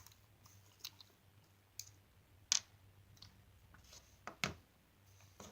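Small scattered clicks of a T10 Torx driver and small screws being worked out of a folding knife's handle scales, about eight in all, the sharpest about two and a half seconds in.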